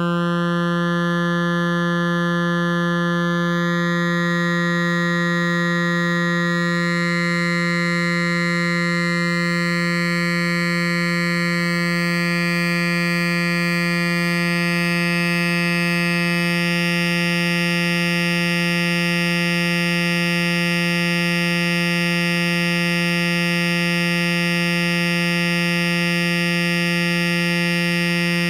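A steady synthesized tone held at one pitch, built from a stack of harmonics in Kyma; higher partials are brought in one after another, so the tone grows brighter over the first fifteen seconds or so and then holds.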